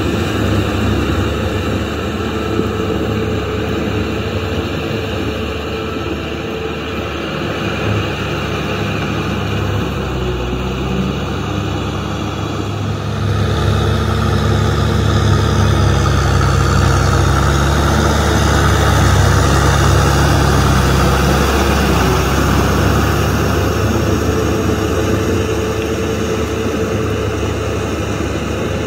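Kubota M6040SU tractor's four-cylinder diesel engine running steadily under load while it drives a rear rotary tiller through wet paddy mud. It gets louder about halfway through and eases off again near the end.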